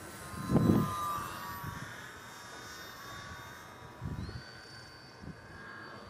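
Electric motor and propeller of an RC foam airplane whining in flight, its pitch sliding down over the first seconds and then rising about four seconds in. Low thumps break in, the loudest about half a second in and another about four seconds in.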